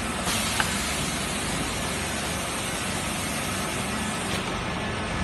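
Steady, even hiss and hum of running factory machinery, with a small click about half a second in.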